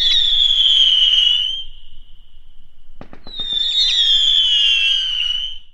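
Two firework screamers in turn, each a loud, high shriek that falls slightly in pitch, set off with a few sharp pops. The first fades about a second and a half in, and the second starts about three seconds in.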